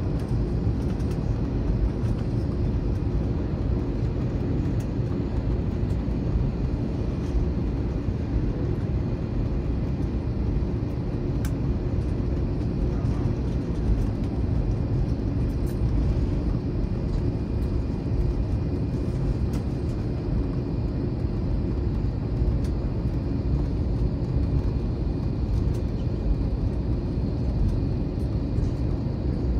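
Steady low rumble inside the cabin of an Airbus A321 airliner rolling and taxiing on the ground after landing, its jet engines at low thrust, with a faint steady high whine.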